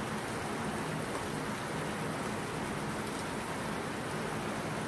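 Chicken, bacon and vegetables sizzling in a steaming pan, a steady crackling hiss.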